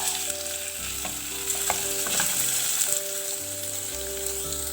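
Paneer cubes sizzling steadily in hot sunflower oil in a frying pan, with a few faint taps of a utensil as they are turned to brown the other side.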